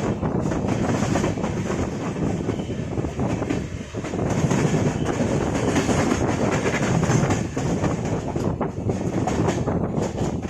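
Running noise of a moving LHB passenger coach: a steady rumble with rattling and the clicking of wheels over rail joints.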